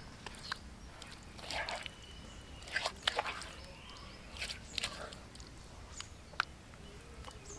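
Thick wet spice paste squelching and scraping as a hand scoops it around the pit of a stone grinding slab, in short irregular bursts with a brief sharp click near the end.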